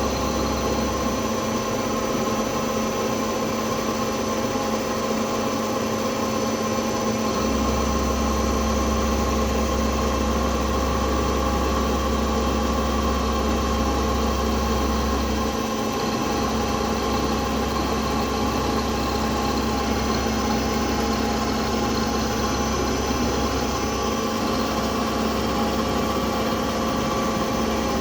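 CNC milling machine running steadily with a constant mechanical hum of several steady tones. A deep low rumble under the hum drops away and comes back several times.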